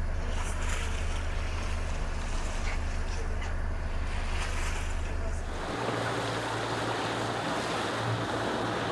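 Motorboat engine running with a steady low hum under the rush of wind and water past the hull. About six seconds in, the hum steps up in pitch and the rush of water and wind grows louder.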